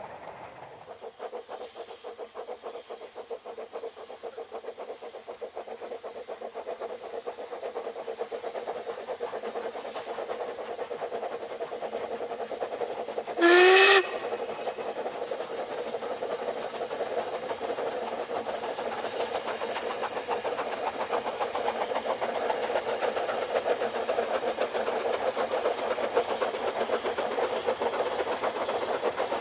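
Narrow-gauge steam locomotive working a train, its steady running sound slowly growing louder. About halfway through it gives one short, loud whistle blast that rises slightly in pitch.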